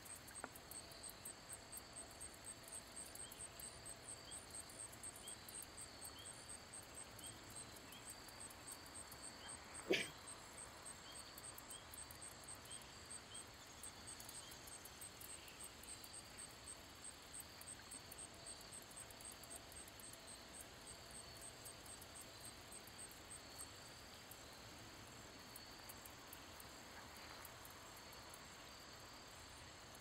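Insects chirping in a faint, fast, even run of high ticks, about four or five a second, that fades out near the end. A single sharp knock about ten seconds in is the loudest sound.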